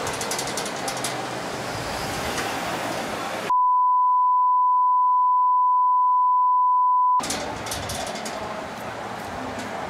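A steady 1 kHz bleep tone, about three and a half seconds long, starting about three and a half seconds in, which blanks out all other sound like a censor bleep. Around it, a metal sliding gate rattles and clicks as it opens.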